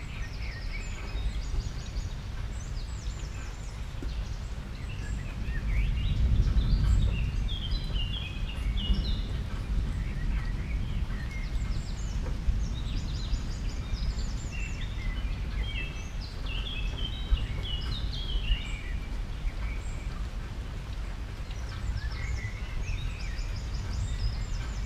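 Steady low background rumble with many short, high chirps of small birds scattered through it in clusters.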